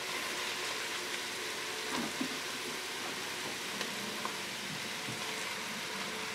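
Diced vegetables and onions sizzling steadily in a hot roasting pan, with a few faint clicks as browned rabbit pieces are laid on top.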